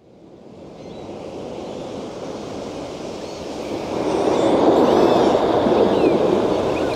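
Ocean waves and surf fading in from near silence and swelling to their loudest about four to five seconds in, with a few faint high gliding cries above the wash.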